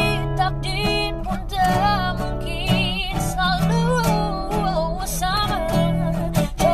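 A young woman singing a slow pop ballad with sustained, wavering vibrato notes, accompanied by acoustic guitar.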